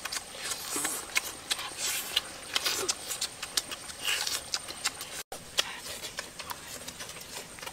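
Close-up eating sounds: wet chewing and lip-smacking with many sharp clicks as food is bitten and torn with the teeth, broken by a brief gap about five seconds in.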